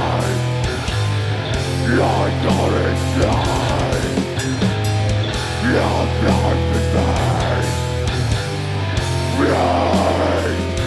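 Death metal band playing live: distorted electric guitars and bass holding low, sustained notes over drums, with the vocalist's harsh vocals coming in short phrases every second or two.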